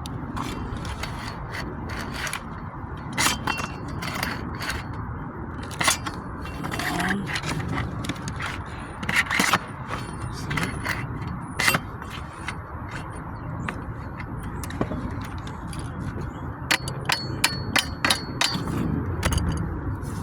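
Steel shingle ripper scraping and clicking under a wood shake as it is worked at a stuck staple, in many irregular sharp strokes. The staple is resisting, and the roofer thinks it broke off inside.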